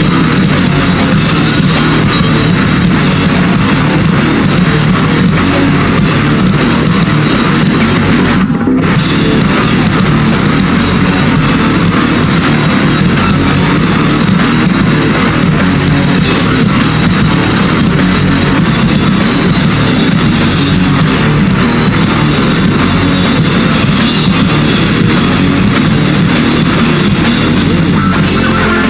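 Live heavy rock band playing loud and dense, with no vocals: electric guitars, bass and a drum kit with cymbals. A split-second break in the upper range comes about eight and a half seconds in.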